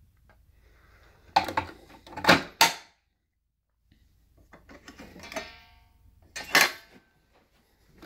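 Hard plastic knocks and clatter as the Dirt Devil Featherlite upright vacuum's bag cover is handled and fitted back onto the body, with the vacuum switched off. There are three sharp knocks in quick succession, then a rattling clatter, then one more loud knock about two-thirds of the way in.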